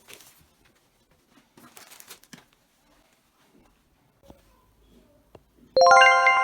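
Faint, soft rustling and handling sounds. Near the end a bright, bell-like chord of several ringing notes starts suddenly, the loudest sound here, and rings on slowly fading, like the opening of chime music.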